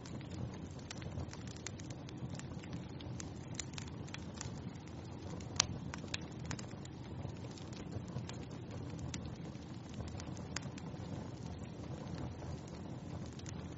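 Wood fire in a fireplace crackling: a steady low rumble of burning with frequent small pops and snaps, one sharper pop about five and a half seconds in.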